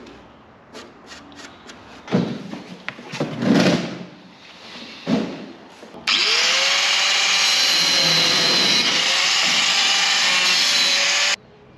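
Some scraping and knocks, then a handheld power tool starts about six seconds in, its pitch rising as it spins up, runs steadily and loudly for about five seconds, and cuts off suddenly.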